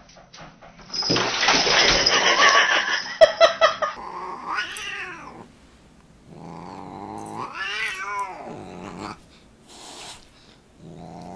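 Siamese cat yowling at a dog: drawn-out, wavering calls that rise and fall, a short one and then a longer one, with another starting near the end. Before them, for the first few seconds, a loud noisy rush.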